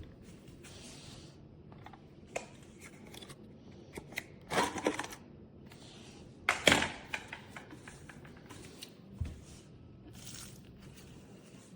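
Plastic clicks and clatter of the wet-dry vacuum's dirty-water tank being taken out and handled, with two louder rattling bursts about four and a half and nearly seven seconds in.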